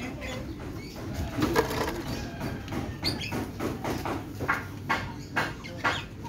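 Birds calling nearby: short chirps that come about twice a second in the second half.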